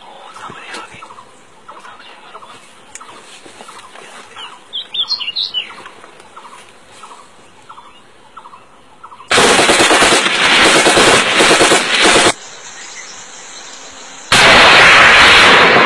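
A bird's short call repeated about twice a second, with a few higher calls around five seconds in. About nine seconds in, a loud burst of rapid gunfire lasts about three seconds with short breaks. Near the end comes a loud blast that fades slowly.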